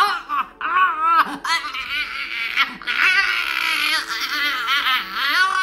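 Siberian husky whining, a high-pitched, wavering whine that rises and falls almost without a break, begging for the snack being eaten in front of it. Light background music underneath.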